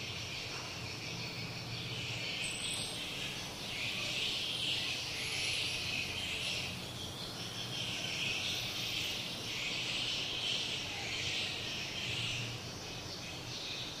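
A dense, high-pitched chorus of swiftlet chirps and twitters, swelling and easing in waves.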